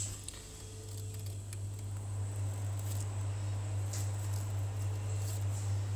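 Steady low hum, with a few faint soft crinkles and squishes of a piping bag being squeezed as cream leaves are piped.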